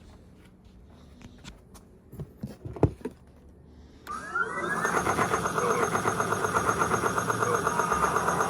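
A few handling clicks and knocks, then about four seconds in many BRX laser tag rifles sound together: a rising electronic whine into a loud, fast-pulsing electronic tone, the game-start effect played by all the rifles at once.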